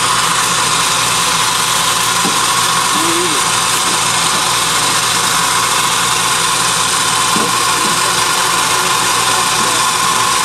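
Spinning-head centrifugal mortar caster running as it slings lining onto the manhole walls: a steady high whine over a loud, even hiss, with an engine running underneath.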